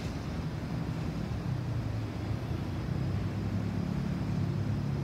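Steady low rumble of distant vehicles, swelling a little in the second half.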